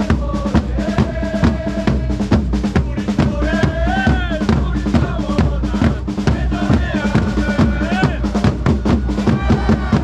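Football supporters' drum section beating large mallet-struck drums in a steady, fast rhythm while a stand full of fans sings a chant together.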